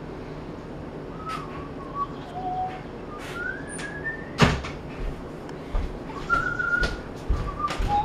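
A few short whistled notes at scattered pitches, one gliding upward in the middle, among several sharp clicks and knocks; the loudest knock comes about halfway through.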